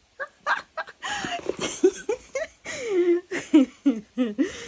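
A woman's excited, breathless vocal sounds with no words: short squeaks, gasps and giggles in quick succession, with heavy breathing between them.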